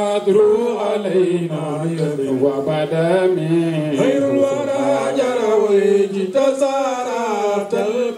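Men chanting a devotional Arabic poem in praise of the Prophet Muhammad into microphones, in long melodic phrases that rise and fall.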